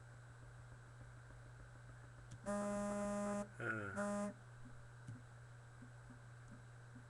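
A buzzy, horn-like tone sounds for about a second, wavers and glides briefly, then sounds again for a moment, over a low steady hum.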